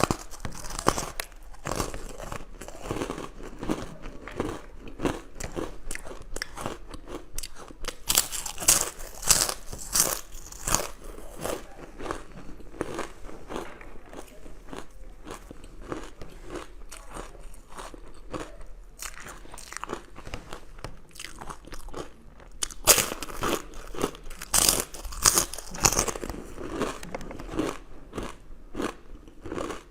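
Eating sounds: a person biting and chewing crunchy food, with a steady run of small crackles. There are two spells of louder, crisper crunching, about eight seconds in and again about twenty-three seconds in.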